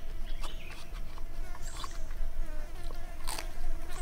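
Steady insect buzz of flies or bees, with scattered short clicks and crunches from someone eating crispy roasted pork skin, the loudest about three seconds in.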